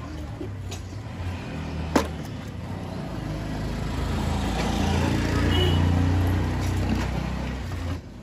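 Motor vehicle engine running close by: a low rumble that swells through the middle and later part and cuts off suddenly near the end. A single sharp click sounds about two seconds in.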